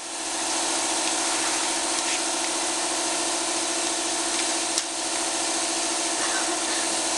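Shop air compressor running steadily: a pulsing hum with a hiss over it.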